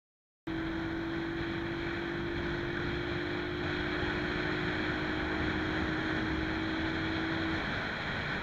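Motorcycle riding at steady highway speed, heard from on the bike: wind rushing over the microphone and road noise, with a steady engine hum that stops about a second before the end. The sound starts abruptly about half a second in.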